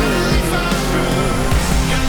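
Loud rock music soundtrack with a drum beat.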